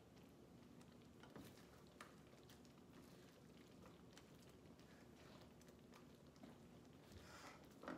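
Near silence, with a few faint scrapes and taps of a spatula turning scrambled eggs in a skillet, the clearest tap near the end.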